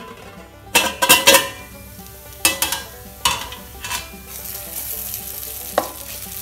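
Spatula scraping and knocking against a kadhai as a thick tomato masala is stirred, several strokes over the first four seconds and one more near the end. From about four seconds in, a steady sizzle of the masala frying.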